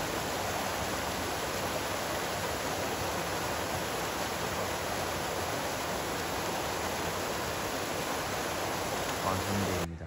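Steady rushing of a mountain valley stream, an even hiss that starts and cuts off abruptly. A brief low sound comes in near the end.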